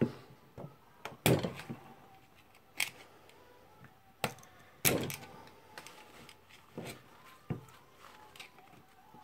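A screwdriver working a tight steel retaining ring out of a Makita HR2470 rotary hammer's barrel, a little at a time. It makes a string of irregular sharp clicks and taps with pauses between them.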